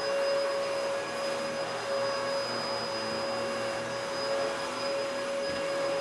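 Vacuum cleaner running steadily: a rush of air with a steady motor whine.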